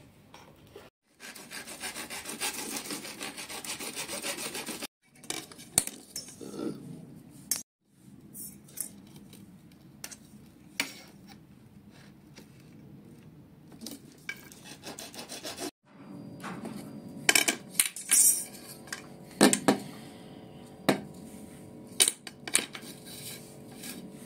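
A bare hacksaw blade held in the hand sawing through PVC pipe in quick back-and-forth strokes, loudest in the first few seconds and in several separate stretches. Several sharp knocks come in the last third.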